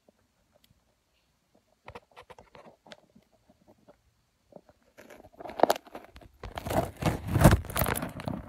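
Scattered light clicks and rustles, then from about five seconds in a louder stretch of close rustling and scuffing from a person moving near the microphone.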